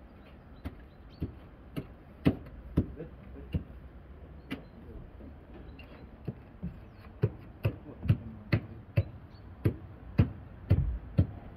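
Footsteps on wooden stair formwork boards: a string of sharp knocks at irregular spacing, coming quicker in the second half, over a low rumble.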